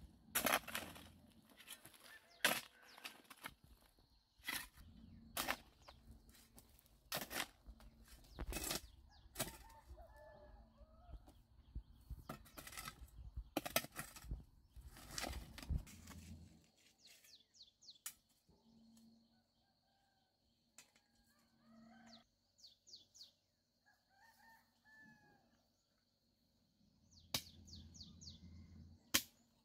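A metal-bladed hand hoe chopping into dry, clumpy clay soil, about one stroke a second, then a pause with bird calls and a few more strokes near the end.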